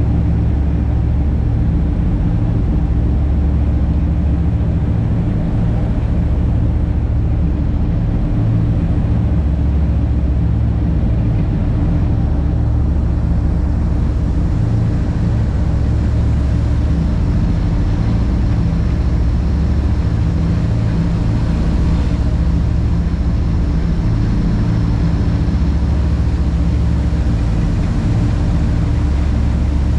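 Boat engine running steadily at cruising speed: a low, even drone with the rushing hiss of the churning wake over it.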